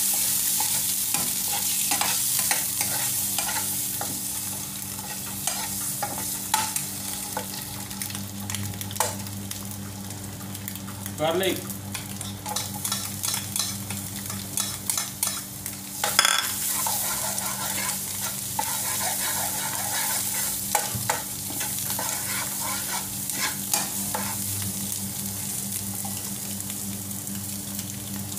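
Oil sizzling as peeled hard-boiled eggs fry in a nonstick pan, with a spoon stirring and clicking against the pan; chopped garlic is tipped in about halfway through and the sizzling goes on. A steady low hum lies underneath.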